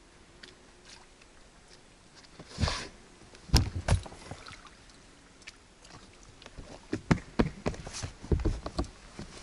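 Knocks and thumps on the hull of a small HDPE motorboat as it is pushed off the shore and a man climbs in over the bow, with water sloshing. After a quiet start come a short rush and a sharp knock, then a run of thumps near the end.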